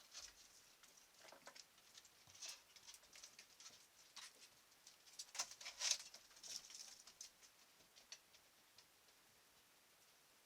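Faint scratching and pattering of a raccoon moving about in a shed: a scatter of light scuffs and clicks, busiest about halfway through and dying away near the end.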